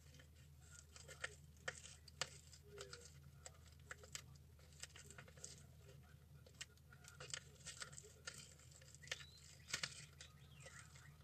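Faint, irregular crinkling and small clicks of thin clear plastic and cotton wool being handled and squeezed into shape.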